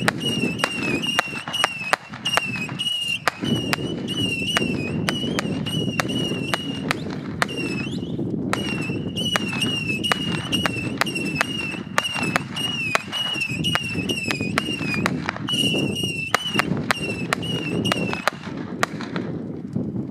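Fireworks going off in a rapid run of sharp cracks, with a high wavering whistle repeating about twice a second over a steady low rumble. The cracks and whistling die away just before the end.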